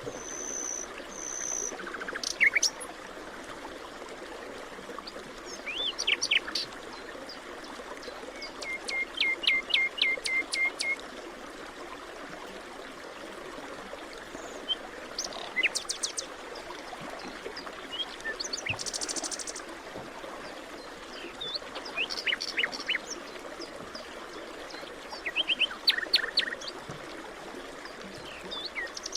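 Forest ambience: several birds calling and singing in turn, including a run of about eight evenly spaced whistled notes in the middle third and a short buzzy call about two-thirds of the way through, over a steady background hiss.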